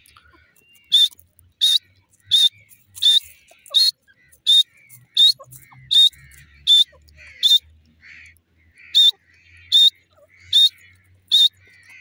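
Grey francolin calling: a loud, rapid series of about fourteen sharp, high notes, roughly one every 0.7 seconds, with a short break about two-thirds of the way through.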